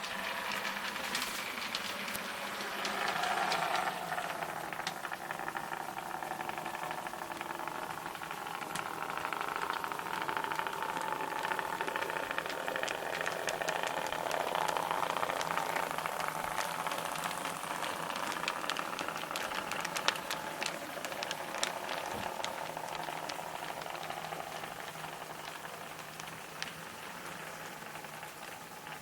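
HO-scale model train running on the track: a small electric locomotive motor whining, its pitch drifting up and down as the speed changes, over a rattle of small clicks from the wheels on the rails.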